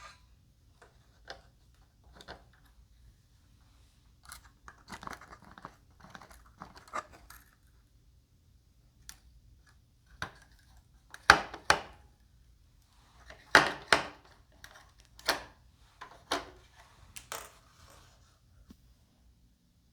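Handling noise from assembling a foam RC airplane: scattered light clicks and rustling, then a run of louder sharp knocks and clacks in the second half.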